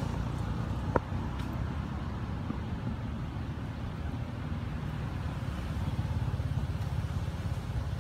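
Steady low outdoor rumble with no clear source, with a single sharp click about a second in.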